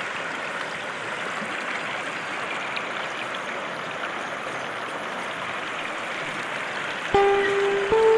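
Shallow river rushing steadily over stones and pebbles. Music with held notes comes in about a second before the end.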